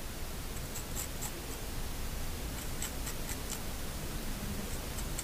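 Light, crackly crunches of the crisp fried crust of a moong dal ramladoo (fritter) as a knife cuts into it, a few short ticks about a second in and a cluster near the middle. The crunch is the sign of a well-fried ramladoo, crisp outside and soft inside.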